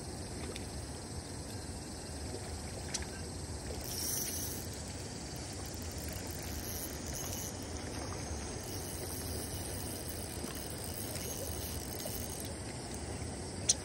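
Steady outdoor background hiss, with a faint high chirp about four seconds in and a sharp click near the end.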